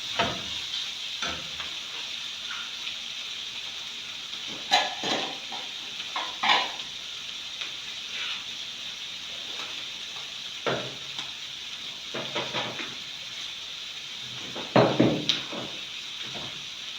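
Shredded chicken and onions frying in oil in a pot, a steady sizzle, with a spoon scraping and knocking against the pot several times, loudest near the end.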